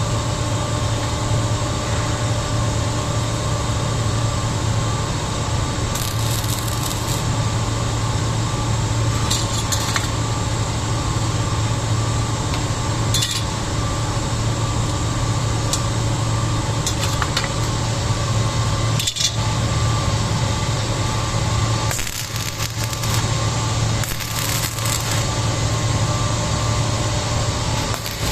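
Electric arc welding: a steady frying crackle of the arc as a weld bead is run, over a constant low hum.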